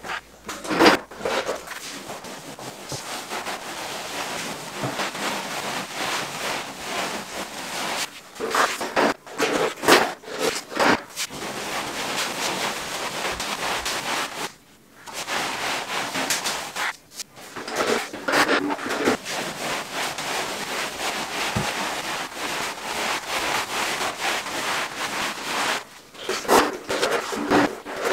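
Continuous rubbing and scraping against a hard wall surface, in uneven strokes, with a short pause about halfway through.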